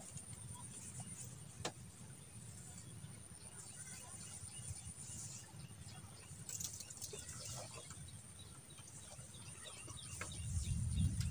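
Faint outdoor ambience: scattered short bird chirps over a low steady rumble, with a single sharp click about a second and a half in; the rumble grows louder near the end.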